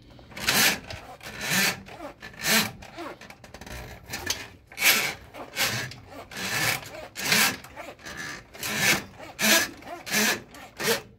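Coiled steel drain-snake cable being pulled hand over hand out of a drain through a gloved hand, rasping against the glove and the pipe rim in a series of strokes, about one or two a second. The cable is being drawn back because it has snagged on something in the drain.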